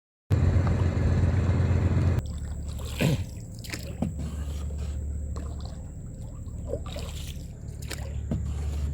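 Small boat's motor running steadily with a low hum. About two seconds in it drops to a quieter, lower-level running note. Scattered knocks and small water splashes sound over it.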